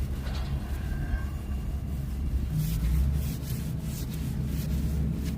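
Boat engine running steadily with a low hum, with a few short hissing noises a few seconds in.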